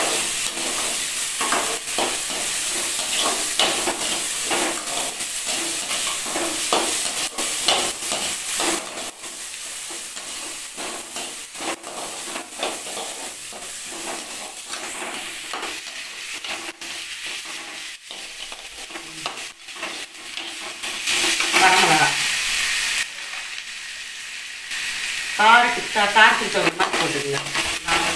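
Tomatoes, onions and chana dal sizzling in oil in a steel kadai, stirred with a metal spoon that scrapes and clicks against the pan. The sizzle drops lower after about nine seconds, and a voice is heard briefly twice in the second half.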